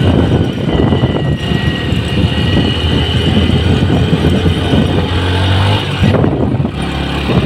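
Motorcycle engine running while riding, under heavy wind rumble on the microphone.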